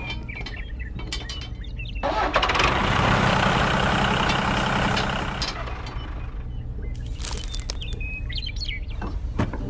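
Small electric motor and gears of a model tractor whirring for about three and a half seconds as it drives, the loudest sound here. Light handling clicks come before it, and a few short bird chirps near the end.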